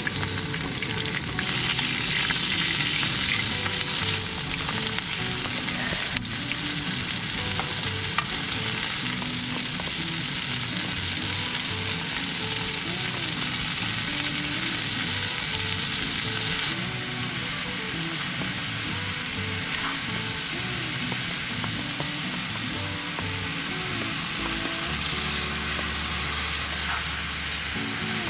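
Chicken and noodles for sauce yakisoba frying and being stirred in a pan, a steady sizzle.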